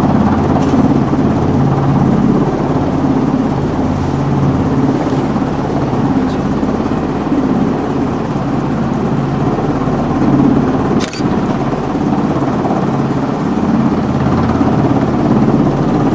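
Coast Guard H-60 Jayhawk helicopter running on deck with its main rotor turning, a loud steady drone of turbines and rotor. A single short click about eleven seconds in.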